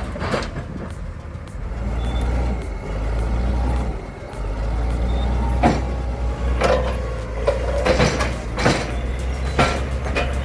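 Heavy diesel machine engine running with a steady low drone, dipping briefly about four seconds in. In the second half come several sharp metallic clanks.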